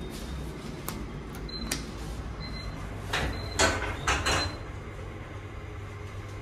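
A 1995 GoldStar lift's doors sliding shut, with a couple of small clicks and then a loud cluster of clunks and rattles as they close in the middle. Short high beeps sound about once a second over a steady low hum.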